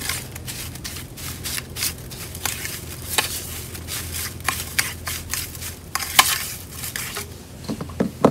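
Metal fork scraping and clinking irregularly against a stainless steel tray as mashed sweet potato and sugar are stirred together.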